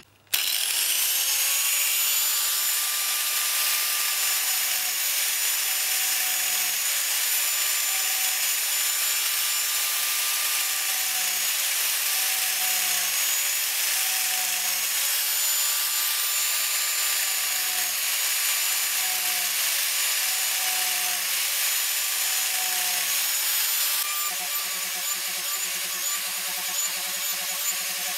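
Angle grinder starting up and running at a steady high whine while its disc grinds scalloped facets into the rim of a wooden bowl. A lower grinding note comes and goes about every second and a half as the disc is pressed into the wood for each facet.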